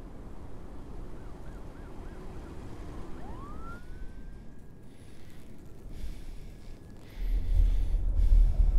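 A distant siren: a fast wavering yelp, then a wail that rises steeply and holds high before fading, over a faint low city hum. About seven seconds in, a deep low rumble comes in abruptly and grows loud.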